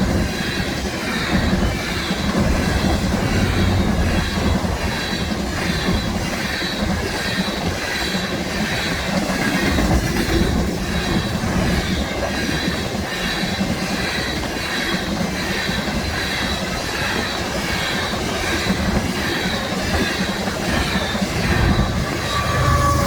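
BNSF freight train rolling past, steel wheels on rail making a steady, loud clatter with an even repeating rhythm. Near the end a locomotive horn starts to sound.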